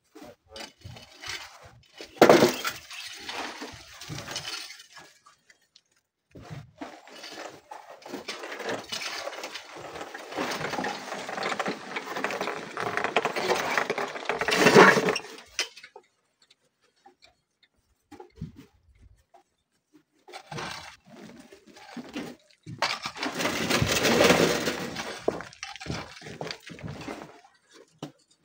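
Hoes and shovels scraping and digging through gravel and stones of landslide debris, with stones clattering and clinking, in several long stretches of work. There is a sharp knock about two seconds in.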